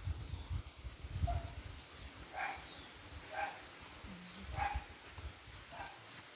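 A dog barking repeatedly, one short bark roughly every second, with a few low thumps in the first couple of seconds.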